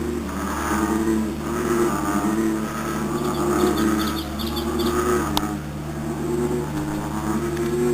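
Chorus of frogs, several calling at once with low, pulsing, overlapping calls. A brief run of high chirps comes about three seconds in, and a single sharp click follows a couple of seconds later.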